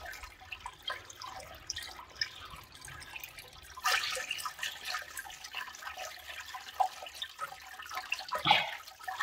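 Hands squeezing and rubbing barley-malt powder in water through a plastic sieve, with water sloshing and dripping in a basin and a louder splash about four seconds in.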